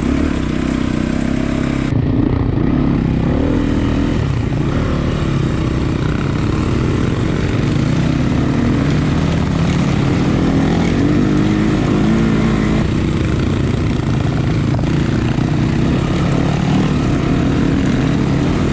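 Off-road motorcycle engine running continuously while riding, its pitch rising and falling as the throttle changes.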